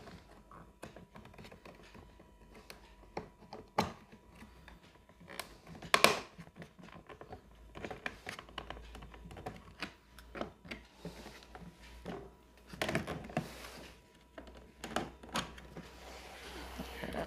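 Plastic locker-box cabinet panels and clips being handled and pressed together: a run of light plastic clicks and knocks, with louder snaps about 4 and 6 seconds in and a cluster of knocks around 13 seconds.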